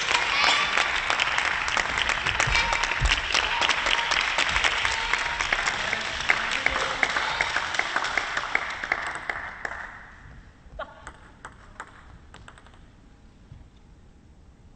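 Crowd applause and clapping in a sports hall, dense at first, then dying away about ten seconds in. A few scattered light clicks or taps follow.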